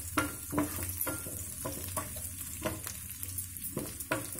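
Chopped garlic sizzling in a little hot oil in a non-stick frying pan while a spatula stirs it, with repeated short scrapes and taps of the spatula against the pan.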